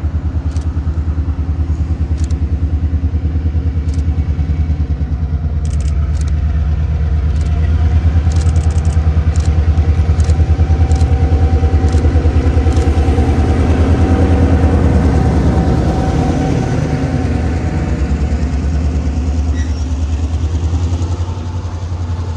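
EMD two-stroke diesel locomotive engine running with a fast, steady beat, swelling louder in the middle and easing off after about sixteen seconds, with sharp clicks scattered through.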